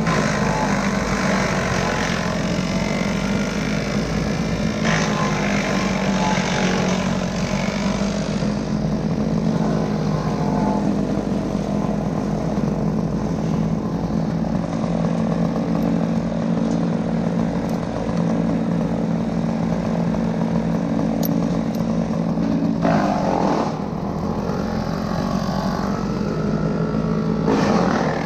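Chainsaw engine running at a steady high speed. Its pitch holds steady until about 23 seconds in, then the running breaks off and changes.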